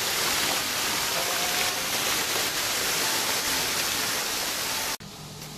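Running water of a small rocky garden stream, a steady loud rush that cuts off suddenly about five seconds in.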